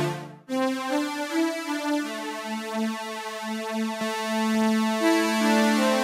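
KV331 Audio SynthMaster software synthesizer playing the vintage-style string preset "STR Farewell BlueSky" from a keyboard: held chords with a slow melody on top. The sound cuts out briefly just after the start, and new notes begin about half a second in.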